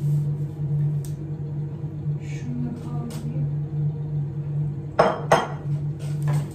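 Two sharp clinks of dishes or kitchen utensils knocking together about five seconds in, over a steady low hum.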